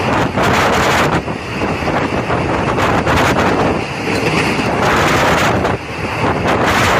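Passenger train running through a rail tunnel: a loud rushing roar of wheels, air and echo off the close tunnel walls, swelling and easing every second or so, with wind buffeting the microphone.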